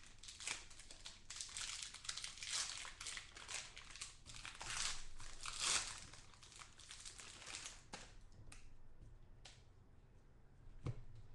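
Plastic wrapper of a pack of football trading cards crinkling and tearing as it is ripped open, loudest about five seconds in. After that it goes quieter, with a few light clicks as the stack of cards is handled.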